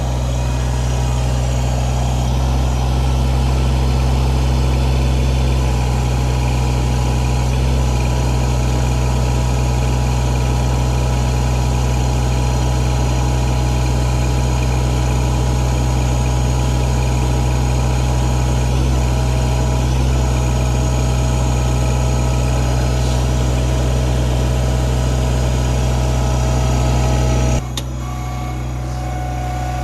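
Kubota BX24 sub-compact tractor's three-cylinder diesel engine idling steadily, its low drone changing abruptly near the end.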